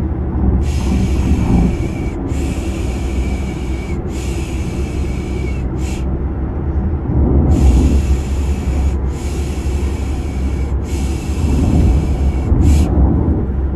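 Steady low rumble of a car sound effect, with a rhythmic 'pşşş' shushing over it for lulling a baby to sleep: three long shushes and a short one, a pause of about a second, then the same again.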